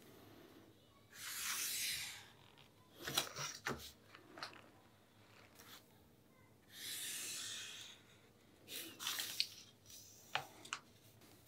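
Black fine-tip pen drawn along a clear plastic ruler across paper: two long scratchy strokes of about a second each, the first about a second in and the second about seven seconds in. Light clicks and taps of the ruler and pen being shifted and set down fall between and after the strokes.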